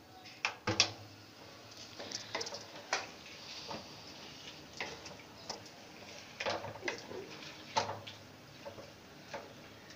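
Wooden spatula stirring turnips and spinach in a large aluminium pan, giving irregular knocks and scrapes against the pan.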